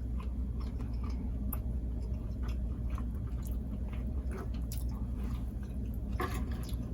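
Close-miked mouth sounds of a person chewing soft food with the mouth open: wet smacking and small squishy clicks over a low steady hum.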